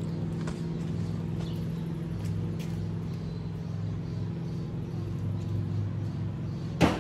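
Acura Integra's four-cylinder engine idling steadily just after a cold start, its exhaust running through a cat-delete test pipe. A single sharp click comes shortly before the end.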